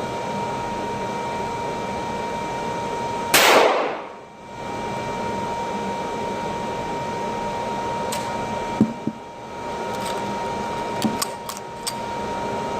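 A single .45-caliber handgun shot about three seconds in, the loudest sound, over a steady ventilation hum with a constant tone. Later a few light clicks and knocks.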